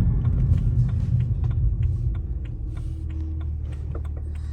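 Low rumble of a running car, easing to a quieter steady low hum about two seconds in.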